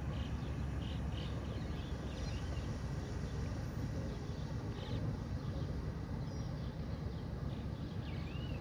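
Birds chirping in short scattered calls over a steady low rumble, as a large cargo ship passes.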